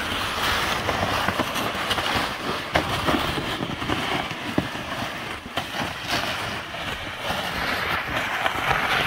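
Loaded plastic gear sled being dragged over snow: a steady scraping hiss with scattered knocks and crunches.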